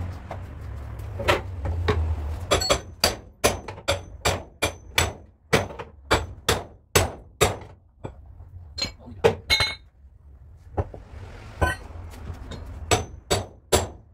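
Hammer blows on the sheet-steel sill of a stripped car body, each with a short metallic ring: a steady run of about two strikes a second, then after a short pause a few more scattered strikes. The sill is being beaten straight while it is chained to a frame-straightening pull.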